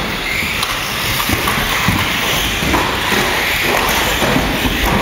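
Electric 1/12th-scale radio-controlled stock cars racing on an indoor track: a steady noisy din with many small knocks and clatters from the cars.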